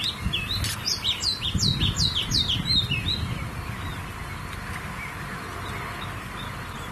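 A bird calling a quick run of short, downward-sliding high chirps that stops about three seconds in, over a low rumble; after that only a faint steady hiss of outdoor background.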